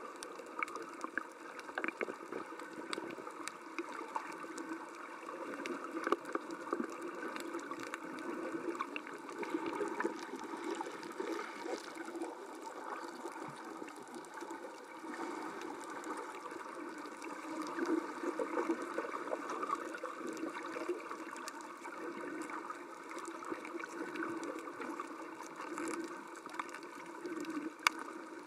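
Underwater water noise picked up by a camera below the surface: a muffled, uneven churning and gurgling with scattered small clicks.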